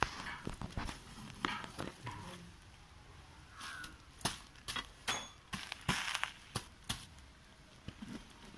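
Iron rods and a metal scraper knocking and scraping as charred embers and ash crusts are raked off a clay hearth onto banana leaves: a run of sharp clicks and knocks, thickest about four to seven seconds in.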